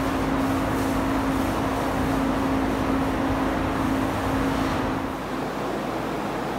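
Steady rushing noise of a paint spray booth's ventilation running, with a steady hum that drops out about five seconds in.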